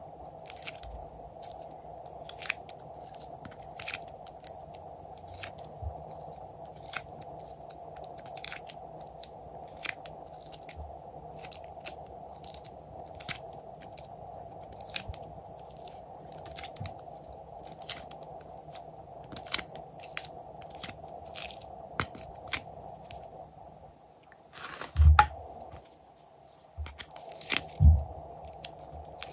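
Sharp clicks and crackles of thin plastic moulds being handled as clay pieces are pressed out and set onto bead-covered slime, roughly one click a second, over a steady faint hum. Two heavier low thumps come near the end.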